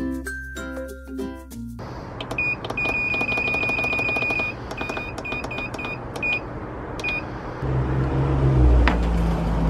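Digital control panel of an electric smoker beeping as it is switched on and set: one long beep, then four short ones a little apart. Background music plays at the start and again near the end.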